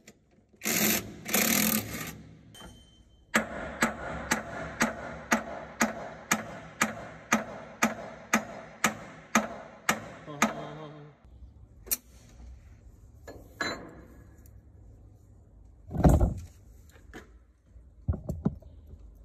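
Cordless impact wrench run in two short bursts on gearbox housing bolts. Then a steady series of sharp metallic taps, about three a second, lasting about seven seconds and fading at the end. Scattered clanks follow, with one loud heavy thump late on.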